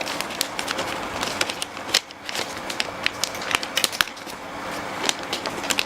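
Shipping parcel's packaging being worked open by hand, with irregular crackling and sharp clicks.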